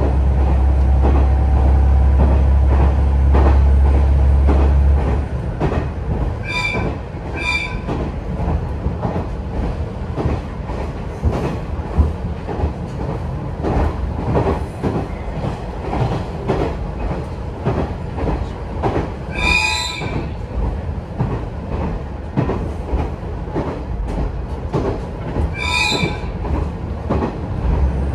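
KiHa 110 diesel railcar running along the line: a heavy low engine drone for the first five seconds eases off, leaving the rapid clicking and rumble of wheels on the track. A few brief high-pitched tones break in, two short ones close together early on and longer ones near the middle and near the end.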